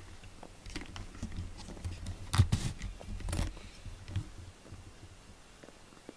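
A cat kneading a fleece blanket: soft rustling and scratching of the fabric under its paws, with a few sharper clicks in the middle, loudest about two and a half seconds in, then dying away.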